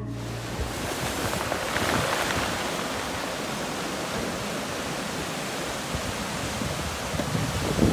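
Ocean surf breaking and washing up the shore, a steady rushing that swells about two seconds in.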